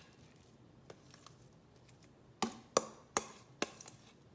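Four sharp knocks about half a second apart, from a utensil striking the side of a dish while potato salad is scooped out.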